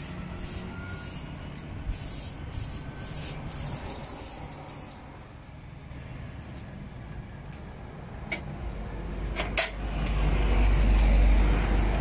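Aerosol spray can hissing in short, repeated bursts for the first few seconds, then fading out. Later come a couple of sharp clicks and a louder low rumble toward the end.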